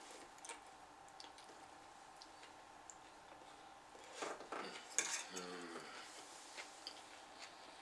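Metal fork clinking and scraping against a plate while twirling and scooping noodles, with a louder stretch of clatter and scraping about four to five seconds in.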